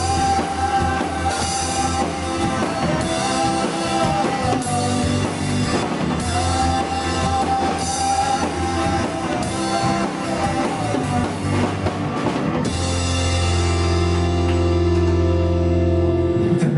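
Live rock band playing: drum kit with cymbal hits on a steady beat, guitars, bass and keyboards, with a wavering melody line on top. About 13 seconds in the band lands on a long held chord with the cymbals ringing, which stops shortly before the end.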